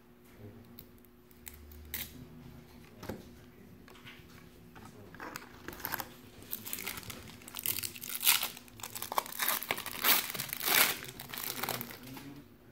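A 1993-94 Fleer Ultra card pack's wrapper being torn open and crumpled by hand, with crinkling that builds up in the second half. A few light clicks of cards being handled come first.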